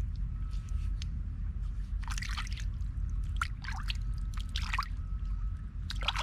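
Water sloshing and squelching in a shallow muddy creek, with several short splashes, over a steady low rumble.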